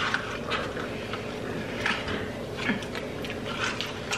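Close-miked eating sounds: scattered wet smacks and soft crunches of people chewing McDonald's french fries.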